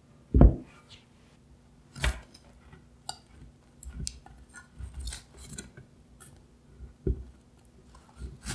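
A metal muffin tin set down on a table with a heavy thump about half a second in, then scattered clicks and knocks as wooden chopsticks lever the muffins in their paper cups out of the tin and the tin knocks against a wire cooling rack.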